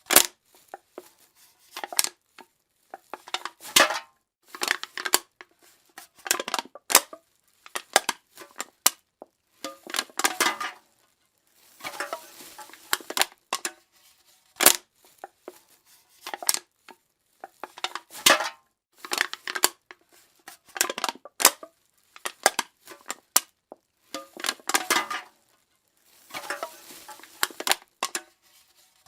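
Aluminium soda can being crushed by hand, in repeated bouts of sharp metallic crinkling and crackling with short pauses between.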